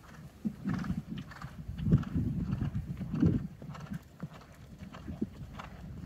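Chestnut horse's hoofbeats cantering on a sand arena footing: a run of low thuds, the loudest about two and three seconds in.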